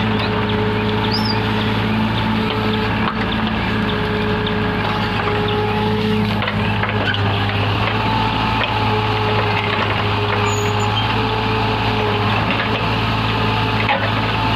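Backhoe's diesel engine running steadily, with a higher whine that comes and goes.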